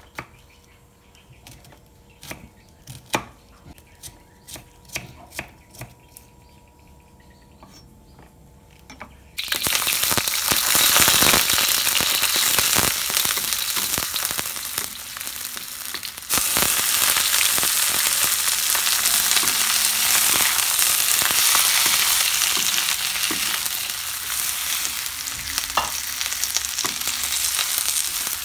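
A kitchen knife tapping irregularly through sliced shallots onto a wooden chopping board. About nine seconds in, a sudden loud sizzle as the shallots hit hot oil in a wok, stirred with a wooden spatula, and the frying carries on with cabbage and rice, dipping briefly partway through.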